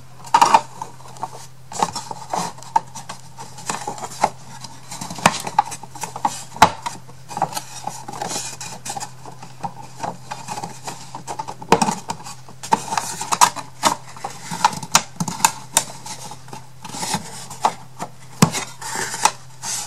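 Thin wooden kit pieces being handled and pushed together by their tabs and slots: irregular light clicks, knocks and scraping, over a steady low hum.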